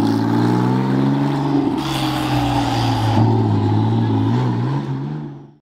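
Sports car engine running as the car drives off, a deep steady drone whose pitch sags slightly and then climbs a little near the end before the sound cuts off suddenly.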